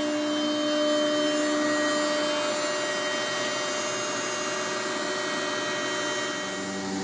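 CNC router spindle (10 HP Colombo) running unloaded at 18,000 rpm during its warm-up cycle: a steady airy hiss with a low hum that fades about two and a half seconds in.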